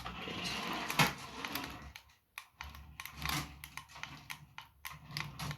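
Toy radio-controlled car driving, its small electric motor running under a clatter of irregular plastic clicks, with one sharp knock about a second in.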